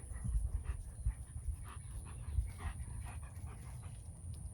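A dog panting in short, irregular breaths, over a low rumble on the microphone.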